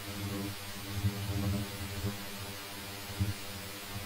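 Low, steady electrical hum with a buzzy stack of overtones, swelling slightly now and then.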